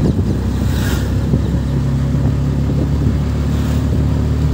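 Engine and road noise heard from inside a moving vehicle: a steady low engine drone that firms up slightly about a second and a half in, with other traffic hissing past about a second in and again near the end.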